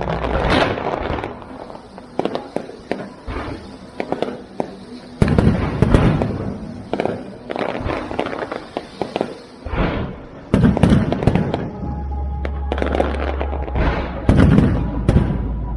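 Aerial fireworks display: shells bursting with deep booms about five seconds in, again after ten seconds and near the end, with dense crackling and popping in between.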